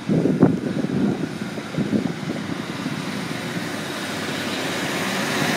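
London Midland Class 150 diesel multiple unit pulling out of the station toward the crossing, its diesel engine and wheels growing steadily louder as it approaches.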